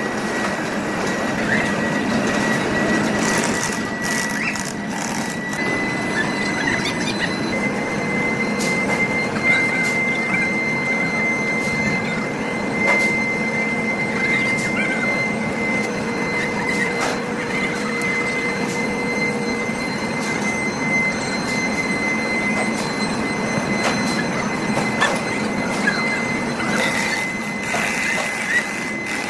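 Heavy factory machinery running with a steady high-pitched whine over a noisy rumble, with occasional sharp clicks and clanks.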